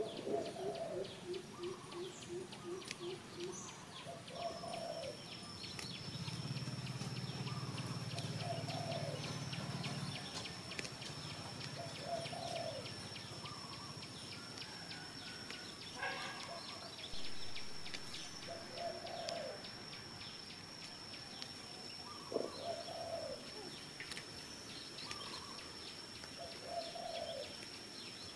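A bird calling over and over, a short arched coo about every three seconds, with a quick run of low, evenly pulsed notes at the start. A steady high-pitched whine sets in about four seconds in, and a low hum rises and fades during the first third.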